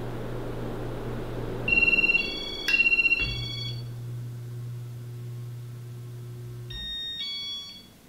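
Casablanca Ventura II ceiling fan with Inteli-Touch control running with a steady motor hum and air rush, its control giving high electronic beeps in two quick sets about two seconds in and again near the end. The hum cuts out with the last beeps and the fan coasts down.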